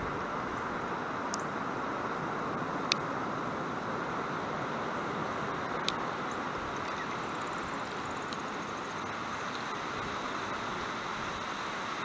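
Steady outdoor rushing noise with a few short, sharp high chip notes from small birds, the loudest about three seconds in. Fainter high bird notes follow a few seconds later.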